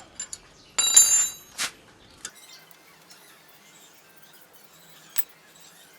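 Metal hand tools clattering with a short ringing about a second in, followed by a few single clicks and knocks.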